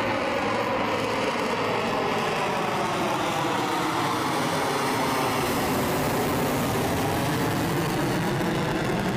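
Jet noise from an F-35 fighter flying past overhead with its afterburner lit: a steady, loud rumble and hiss, with tones in it sliding down in pitch and then back up as it goes by.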